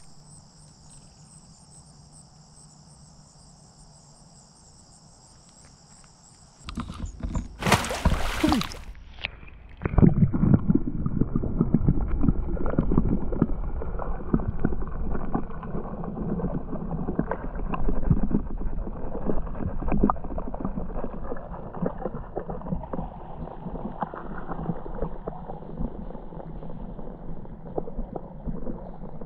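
Insects singing a steady high-pitched drone for the first several seconds. About seven seconds in comes a loud burst of noise. Then, for the rest of the time, there is the low rumbling and crackling of river water heard through an underwater camera.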